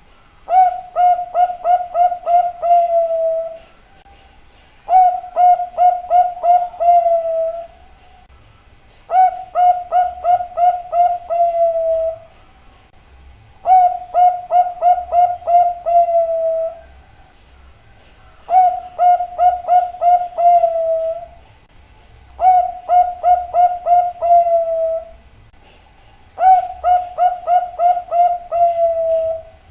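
Zebra dove (perkutut) cooing its song: seven phrases in a row, each a quick run of six or seven short coos that ends in a longer drawn-out note, repeated about every four seconds.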